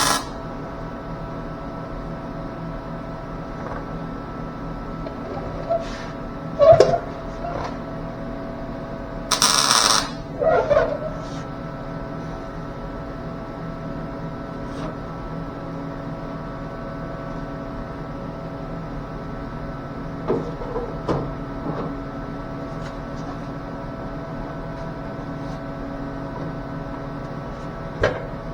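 A MIG welder stitch-welding a sheet-metal taillight panel. One short crackling weld burst, under a second long, comes about nine seconds in, over a steady machine hum with several fixed tones. A few sharp knocks fall around seven seconds in and again around twenty seconds in.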